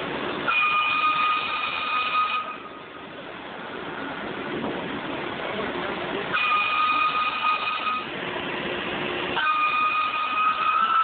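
Metal stone planer shaving a molding into a block of Indiana limestone: steady machine noise, with a high, steady screech from the cutting tool three times, each about two seconds long.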